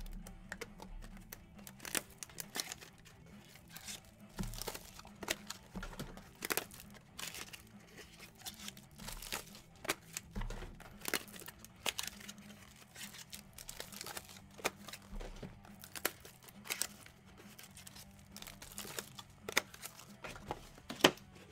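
Plastic wrapping on a box of baseball cards crinkling and tearing, in irregular crackles and snaps.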